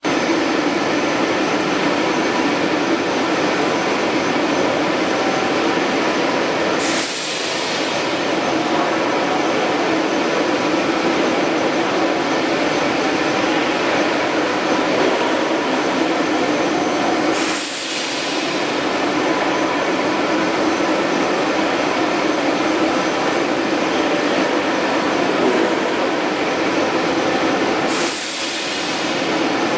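Welded steel tube roll-forming mill line running: a steady, loud industrial din of rollers and moving steel strip, with a few steady hum tones. The din breaks briefly three times, about every ten seconds.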